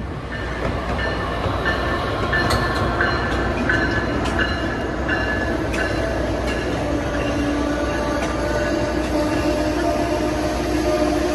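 Amtrak passenger train led by a Siemens ACS-64 electric locomotive rolling in and passing close by, a steady rumble of wheels on rail. Over the first several seconds there are regular ringing strikes about every 0.7 seconds; steady tones take over in the second half.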